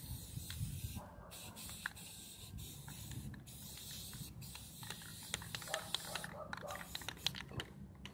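Aerosol spray-paint can spraying: a steady high hiss in several long bursts with short breaks between them, and a few light clicks in the second half.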